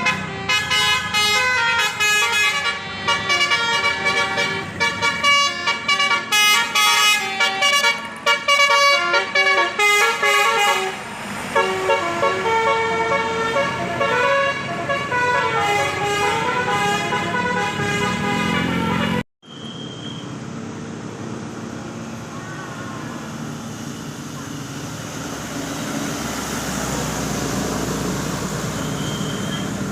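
Tour bus basuri multi-tone air horn playing a telolet tune of quick stepping notes. About two-thirds of the way through it cuts off abruptly, and the steady noise of a bus engine running follows, growing slightly louder near the end.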